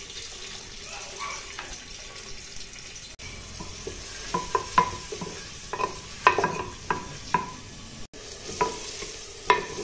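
Onions frying in desi ghee in a clay handi, with a steady sizzle, stirred with a wooden spoon. The spoon knocks and scrapes irregularly against the clay pot from about four seconds in.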